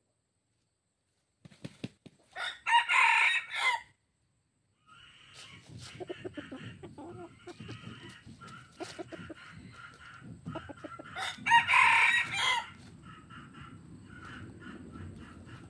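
Red junglefowl rooster crowing twice: one short crow about two seconds in and another about eleven seconds in. Short clucking calls come between the crows, over a low rustle of dry leaves underfoot.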